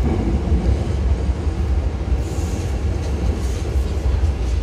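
Hankyu 5000 series electric train departing, its cars rolling past close by with a steady low rumble of wheels on the rails. Brief high hisses come about two and three and a half seconds in.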